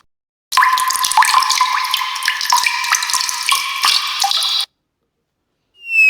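Water running and bubbling, full of quick watery blips, like a tap running into a sink. It starts about half a second in and cuts off abruptly about four seconds later.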